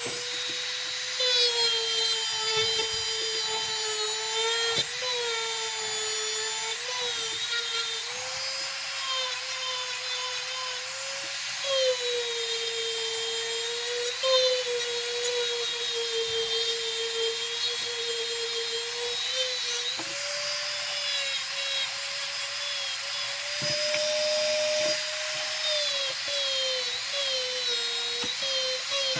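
Dremel rotary tool running with a polishing attachment on a steel knife blade: a high, steady motor whine whose pitch sags and recovers again and again as the tool is pressed against the blade and eased off.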